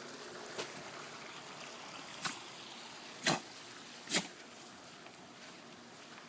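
Four short, sharp clicks or taps over a faint steady hiss; the third and fourth are the loudest.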